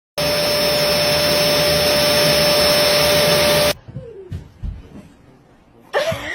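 A loud, steady motor whir with a constant whine in it, starting abruptly and cutting off suddenly after about three and a half seconds. Quieter knocks follow, and a voice comes in near the end.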